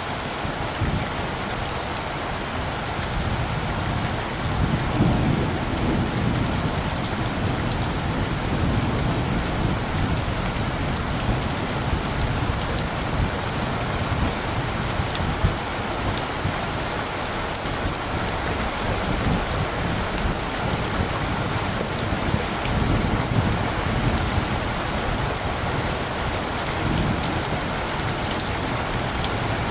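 Steady rain falling, a dense even hiss with pattering drops. Low rumbles of thunder swell up a few seconds in and twice more in the second half.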